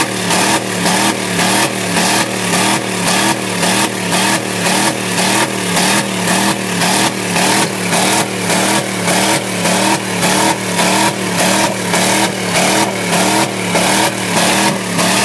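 Chevy S-10 pickup's 350 small-block V8 held against its rev limiter, the engine note cutting out and catching again in a rapid, even stutter several times a second.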